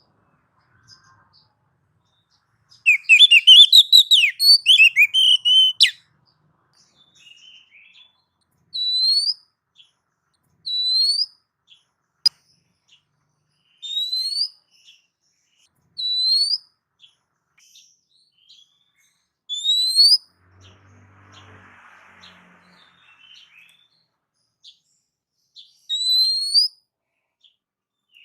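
Oriental magpie-robin singing: a few seconds in, a burst of fast, varied warbling phrases, then six single rising whistled notes, each a second or more apart, with longer pauses between some of them.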